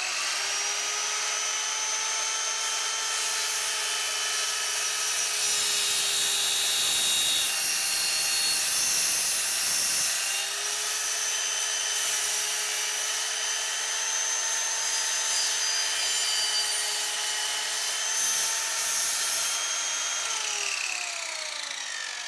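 Electric circular saw running at full speed with a steady high whine, its blade cutting through a plastic figure with a rough rasping hiss; the pitch sags briefly about eight to ten seconds in as it cuts. About twenty seconds in the motor winds down, its whine falling in pitch.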